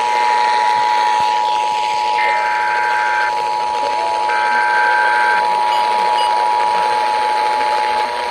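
Emergency Alert System attention signal: the steady two-tone alarm (853 and 960 Hz together) held for about eight seconds, cutting off near the end, announcing a severe thunderstorm warning. Two shorter, higher tones, each about a second long, sound behind it about two and four seconds in.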